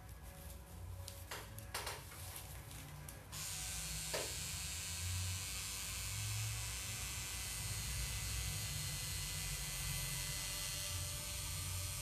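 Pen-style tattoo machine switching on about three seconds in, after a couple of brief handling noises, then running steadily as the needle works ink into the skin of a leg.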